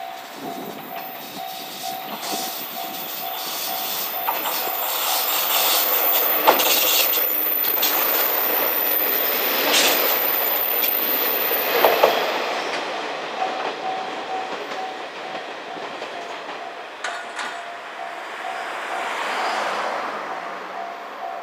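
KiHa 47 diesel railcar passing close by. Its engine and running noise build to a peak and then fade away, with a few sharp clacks as the wheels cross rail joints.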